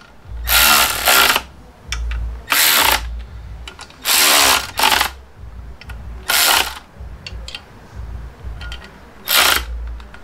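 Cordless electric ratchet run in five short bursts of about half a second to a second each, spinning the clutch pressure plate bolts down onto the flywheel. The bolts are only being snugged to take up the slack before torquing. Light clicks between the bursts.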